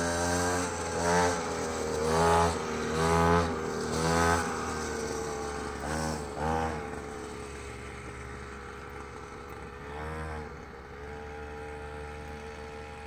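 Mini dirt bike's small single-cylinder engine revving in short throttle blips, about six in the first seven seconds and one more near ten seconds, then holding a steady pitch and fading as the bike rides off.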